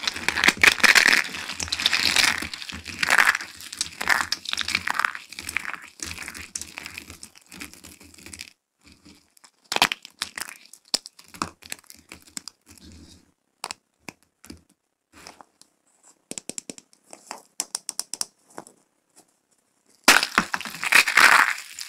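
Dry soap plates crushed and crumbled between the hands: dense crunching for the first several seconds, then sparse sharp cracks and snaps as small pieces are broken. About a second before the end comes loud crunching as a soap sphere is squeezed and cracks.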